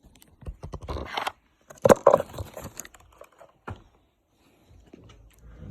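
Baseball card packs and cards being handled: wrapper crinkling and rustling with small scrapes and knocks, loudest about two seconds in.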